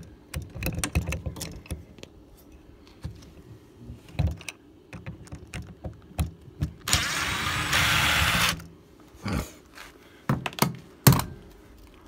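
Clicks and knocks of a screwdriver and metal parts on an RV door's lock handle. About seven seconds in, a power screwdriver runs for about a second and a half, backing out one of the handle's mounting screws, and a few sharp knocks follow.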